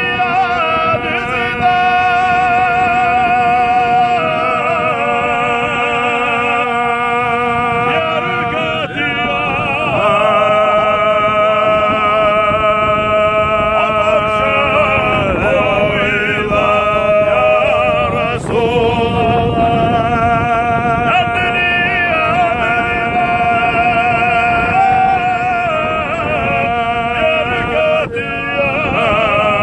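A man singing unaccompanied in long held notes with a wavering vibrato, over the low steady hum of a boat's engine.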